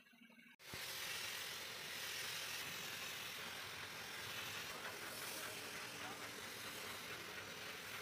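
Spray paint gun hissing steadily with compressed air. It starts suddenly about half a second in.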